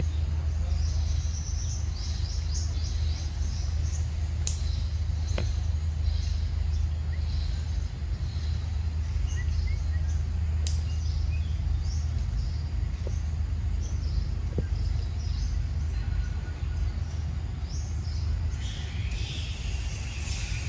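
Outdoor ambience: birds chirping over a steady low rumble, with a few faint clicks. Near the end a steady higher drone comes in.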